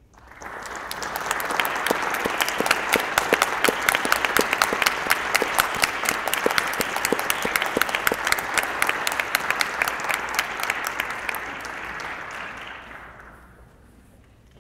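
Audience applauding: clapping breaks out suddenly, builds within about two seconds, holds, and dies away near the end.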